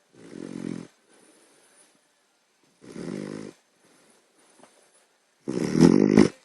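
A sleeping puppy snoring loudly: three raspy snores about two and a half seconds apart, the last one the loudest.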